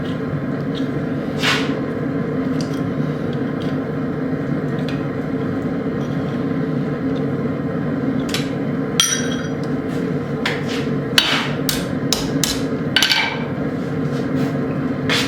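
Hammer blows on a hot split steel bar as it is being opened up: one strike about a second and a half in, then a quick run of about ten strikes near the end, some ringing briefly. A steady hum runs underneath.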